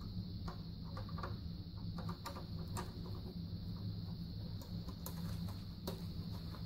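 Faint, irregular clicks and scrapes of a Phillips screwdriver turning out the screws on an electric water heater's lower thermostat, over a low steady hum.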